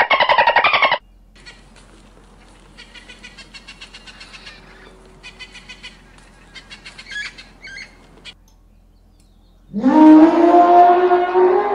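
A sea lion calls loudly for about a second. Then come faint bird chirps and runs of quick ticking, and near the end a loud, drawn-out animal call that rises in pitch.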